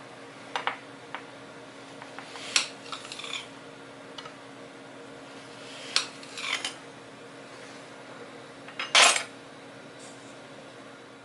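Scattered light clicks and short scrapes of utensils or small tools against a dish or tray, the loudest a brief scrape about nine seconds in, over a faint steady hum.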